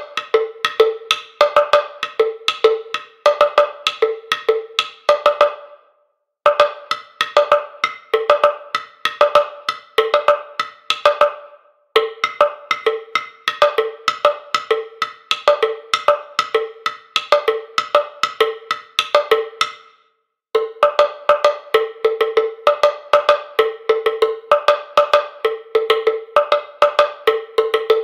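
Sampled krin, a West African wooden slit drum from Native Instruments' West Africa library, played by the built-in pattern player at 130 BPM: a quick, even rhythm of hollow wooden strikes on a few pitches. The pattern breaks off briefly three times, about 6, 12 and 20 seconds in.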